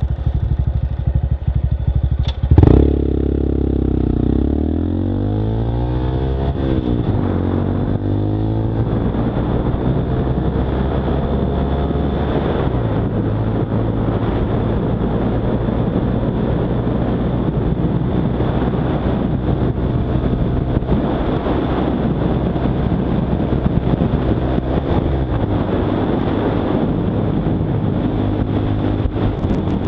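Honda Monkey 125's single-cylinder four-stroke engine running on the road, heard from the bike. About two and a half seconds in there is a sharp knock, then the engine note falls over the next few seconds and settles into steady running.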